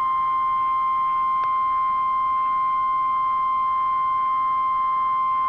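Emergency Alert System attention signal: a steady, piercing electronic tone held at one pitch, announcing an emergency alert. A faint click comes about one and a half seconds in.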